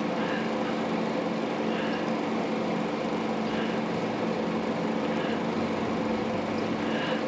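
Steady machine hum with a few faint light taps scattered through it.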